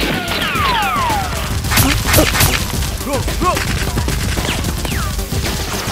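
Bursts of gunfire sound effects, with sharp shots and several falling whistling tones like passing rounds and ricochets, laid over a toy-blaster firefight.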